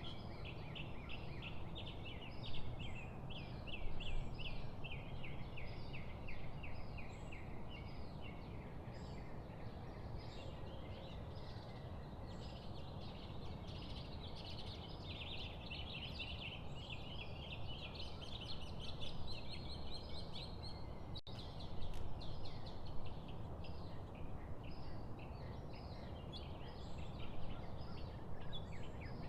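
Small birds singing in a morning outdoor chorus: fast trills and chattering runs of short, high notes, nearly continuous, over a steady low background rumble.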